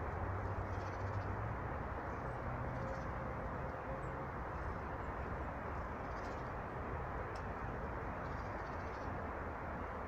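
Steady outdoor background rush, with faint high bird chirps a handful of times.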